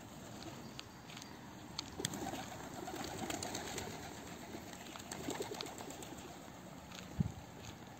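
Feral pigeons cooing, with scattered light clicks and a single low thump near the end.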